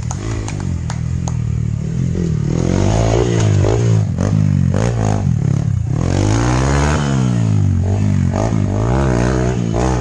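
Motorcycle engine revving up and down again and again as it is ridden through an off-road course, with a few sharp clicks in the first second or so.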